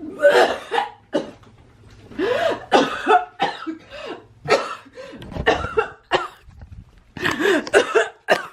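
A woman coughing and hacking in about four harsh fits, with strained voiced gagging sounds in them. The coughing is put on as part of a fake coughing-up-blood prank.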